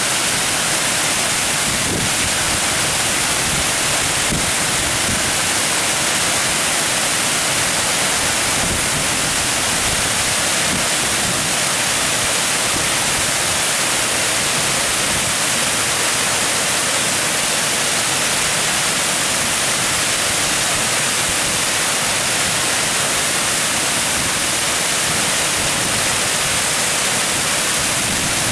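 Water pouring over a ledge and churning into foam, a loud, steady rushing hiss with no breaks.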